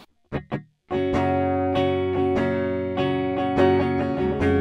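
Gibson Les Paul Studio 2015 electric guitar on the middle pickup-selector position (both pickups together), played with a clean tone. Two short plucks come first, then chords are struck about every half second and left ringing, with a fresh chord near the end.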